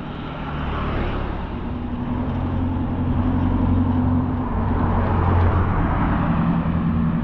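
A motor vehicle's engine running with a steady low hum, getting louder over the first five seconds or so, over a steady rushing road noise.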